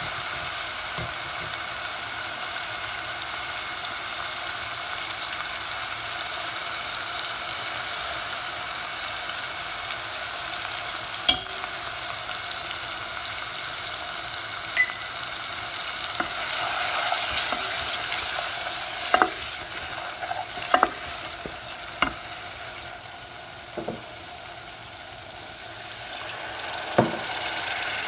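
Oil sizzling steadily as ground spices fry in a metal pot. Several sharp knocks cut through the hiss in the second half, from a spoon striking the pot while the spices are stirred.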